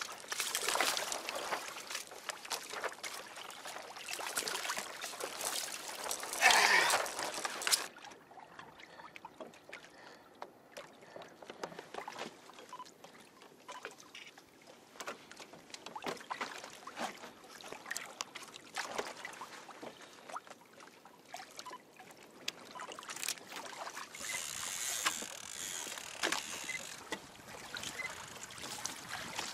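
Sea water sloshing and splashing against a fishing kayak's hull, with wind on the microphone and scattered knocks. It is loudest over the first eight seconds, then cuts suddenly to quieter lapping, and the wind noise rises again near the end.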